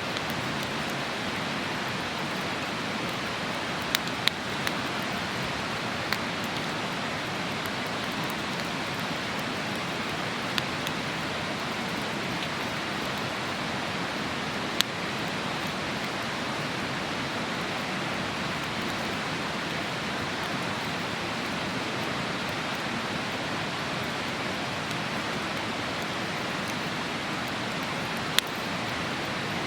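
A river's steady rushing flow with a campfire crackling over it: a handful of sharp, scattered pops, a cluster of three around four seconds in and single ones later.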